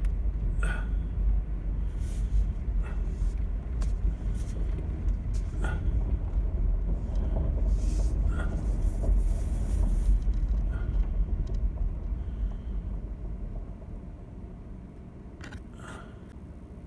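A vehicle moving slowly over rough ground: a steady low rumble with scattered knocks and rattles, easing off about twelve seconds in and staying quieter for the last few seconds.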